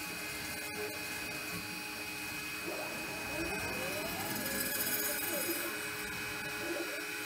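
DIY five-axis CNC router running, its stepper motors whining up and down in pitch as the tool head moves and swings, over a steady machine hum with a few constant high tones.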